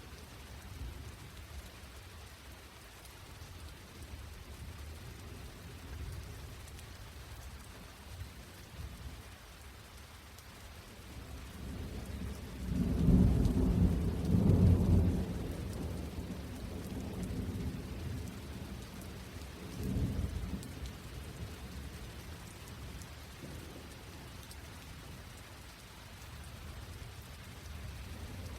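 Steady rain with a long low rumble of thunder about halfway through, the loudest sound here, and a shorter rumble a few seconds later.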